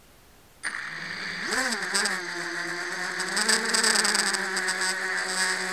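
FPV quadcopter's brushless motors and propellers spinning up suddenly less than a second in, the whine rising in pitch as the drone lifts off, then holding a steady buzzing whine in flight. Heard right at the motors through the drone's onboard camera.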